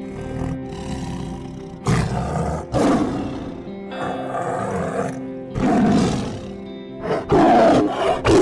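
A big cat roaring several times in loud, rough calls over soft background music with held notes.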